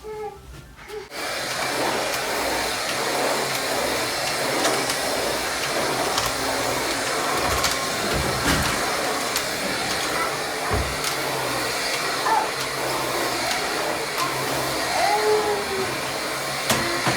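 Vacuum cleaner switched on about a second in, then running steadily.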